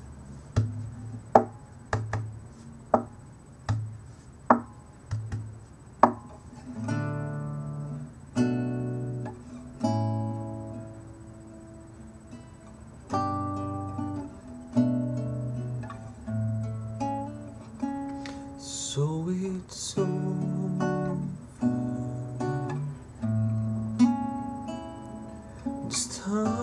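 Solo acoustic guitar playing a slow intro. It opens with single sharp plucks about a second apart, then moves to slow strummed chords, each left to ring for a second or two.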